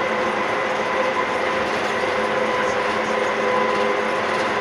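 Tateyama Tunnel trolleybus running at steady speed through its tunnel, heard from inside the bus: a steady whine from the electric drive over an even rush of tyre and road noise.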